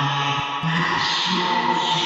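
Chant-like musical sound effect: sustained droning tones with a hissy layer above, stepping to a new pitch twice.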